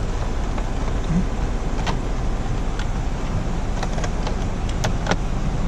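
Scattered light clicks and taps of plastic steering-column trim being handled and pushed into place, over a steady low hum.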